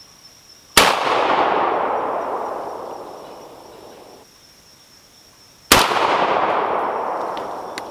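Two shotgun shots about five seconds apart, each followed by a long echo that rolls away through the woods and fades over about three seconds.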